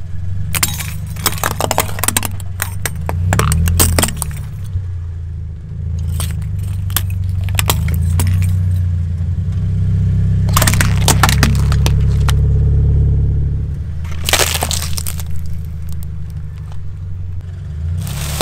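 A car engine running low and steady while its tyre rolls slowly over small objects and crushes them: several bursts of cracking, crunching and clinking, first from a string of metal-caged lantern fairy lights and later from plastic toy cases.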